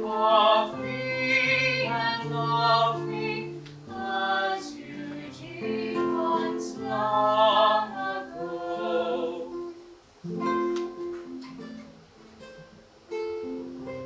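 A classical singing voice sings slow, sustained phrases with vibrato over a plucked guitar accompaniment. The singing stops about ten seconds in, and the guitar plays on alone.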